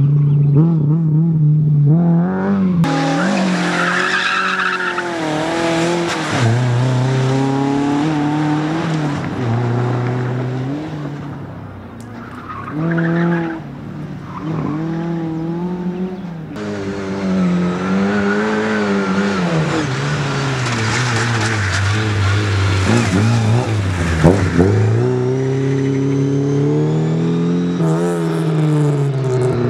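Rally cars on a sprint stage, engines revving hard and falling away repeatedly through gear changes as they pass, with tyre squeal and skidding. There is a brief dip in loudness about twelve seconds in before the next car comes through.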